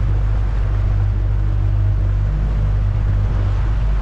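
Outboard motor running steadily at trolling speed, a constant low hum, with the hiss and wash of the boat's wake churning behind it.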